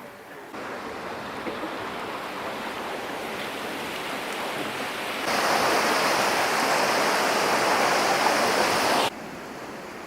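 Steady rushing water noise. It comes in suddenly, grows louder and hissier about halfway through, and drops off abruptly near the end.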